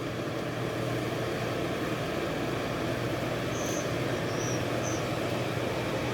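A low, steady engine drone with a constant hum, growing slightly louder in the first second. Three short, high chirps sound near the middle.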